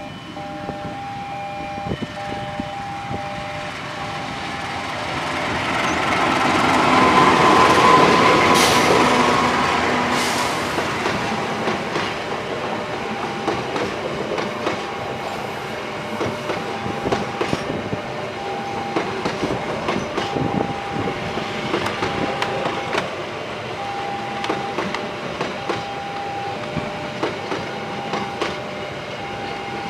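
Diesel-hauled passenger train passing: the locomotive is loudest about eight seconds in, then the coaches go by with steady wheel rumble and repeated rail-joint clicks. Throughout, a level-crossing warning alarm sounds in short dashes of two alternating tones.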